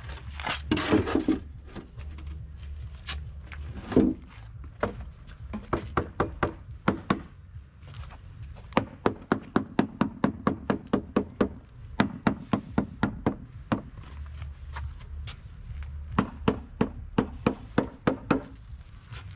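Hammer tapping on a composite plastic mould panel to loosen it from a cast concrete planter during demoulding: runs of quick, light knocks, about four or five a second, with a single louder knock about four seconds in.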